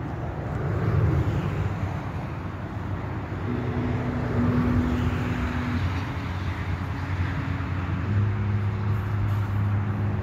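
Steady road traffic noise with a low engine hum that shifts pitch a few times.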